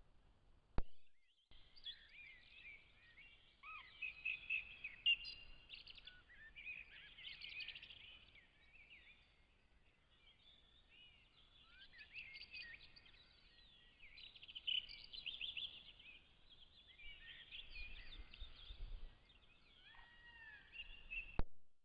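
Songbirds singing: a steady stream of high chirps and short gliding whistled phrases. A sharp click comes about a second in, followed by a moment of dead silence, and another click comes near the end.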